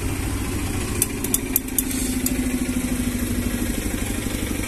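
A steady, pulsing low rumble like an idling engine, with a few light clicks about a second in.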